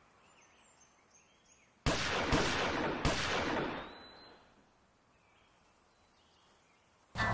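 Three sharp bangs about half a second apart, each with a long echoing tail that fades over a second or so, between stretches of faint outdoor quiet with small bird chirps.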